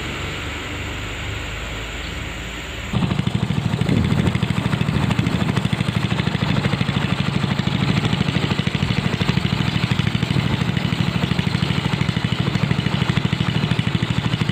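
A small boat engine driving a wooden canoe upriver, running with a fast, even putter that starts suddenly about three seconds in, after a quieter stretch of steady background noise.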